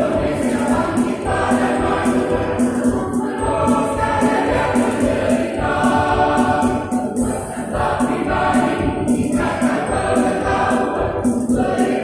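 Mixed choir of women and men singing together in parts, one continuous sung passage.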